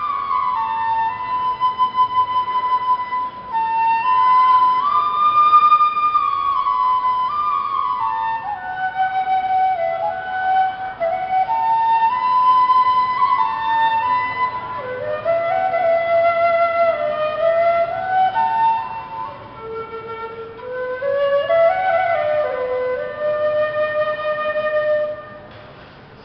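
Side-blown bamboo flute playing a slow solo melody of long held notes joined by small slides, dropping into its lower notes in the second half. The playing stops about a second before the end.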